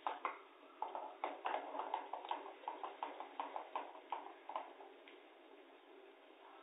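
Silicone spatula stirring thick, thickening gram-flour and curd batter in a steel pan, knocking and scraping against the pan about four times a second. The knocks thin out after about four and a half seconds.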